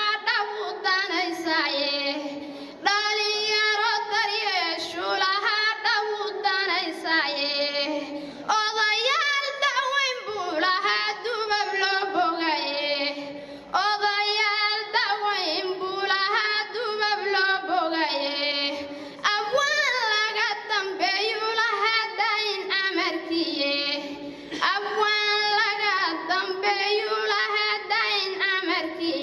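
A young woman chanting a Somali gabay poem unaccompanied into a microphone, in long melodic lines of about five seconds each with short breaths between.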